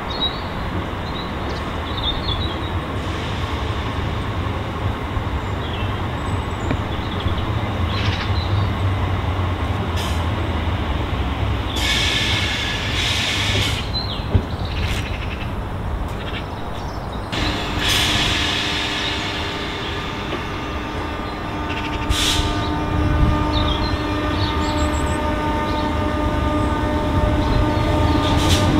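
Class 319 electric multiple unit running into the platform: a steady low rumble of wheels on rail, broken by several short harsh bursts. From a little past halfway a steady whine of several tones joins in as it slows.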